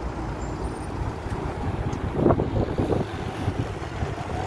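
Single-deck diesel buses running and pulling past, a steady low engine rumble that swells louder about two seconds in, with wind on the microphone.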